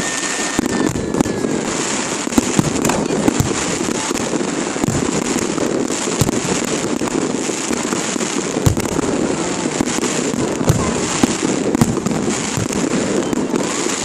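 Fireworks display: many shells bursting at once in continuous crackling and popping, with frequent sharper bangs throughout.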